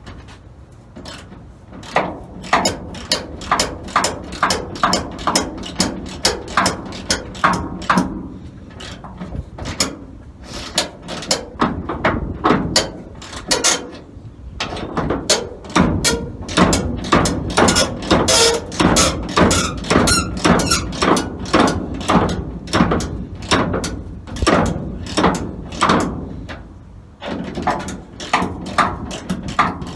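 Ratchet wrench clicking in rapid repeated strokes as it turns a nut welded onto a seized door-hinge screw, the screw coming free and unscrewing. The clicking stops briefly about ten, fourteen and twenty-seven seconds in.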